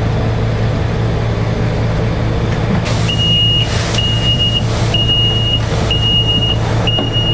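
The Sentosa Beach Tram's engine runs with a steady low hum. About three seconds in, a high electronic warning beeper starts sounding about once a second, five beeps, each with a short rush of noise around it.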